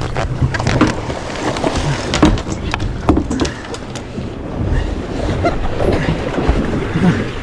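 A boat engine running low under wind and water noise, with irregular knocks and clatter on deck.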